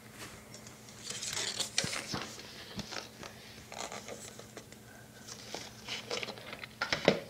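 Scratchy rustling and scattered sharp clicks right against the phone's microphone, as something rubs and taps on the phone. It is busier about a second in and again near the end.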